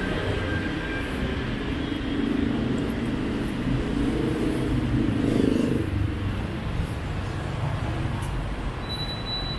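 Street traffic with motorbikes and cars running by, one vehicle passing close and loudest about five and a half seconds in, then fading. A thin high tone starts near the end.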